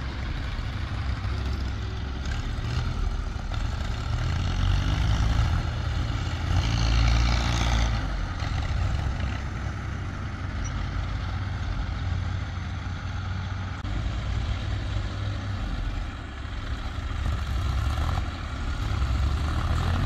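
Heavy diesel engine running steadily, its revs swelling up and back a few times, as of a working machine.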